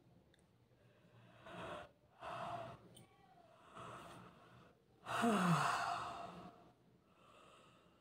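A woman yawning: a few deep breaths, then a long, loud open-mouthed yawn about five seconds in with a voiced note that falls in pitch, and a faint breath out near the end.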